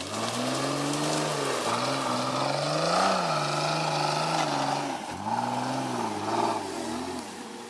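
Off-road 4x4's engine revving up and down under load, its pitch rising and falling several times as the throttle is worked.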